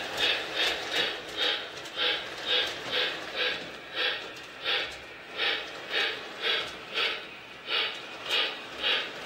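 A Lionel Hogwarts Express model steam locomotive's sound system chuffing steadily, about two to three chuffs a second, as the train runs around the track.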